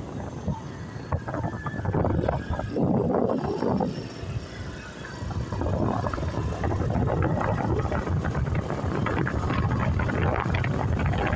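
Wind rushing over the microphone of a moving vehicle, with a low rumble underneath, rising and falling in uneven gusts.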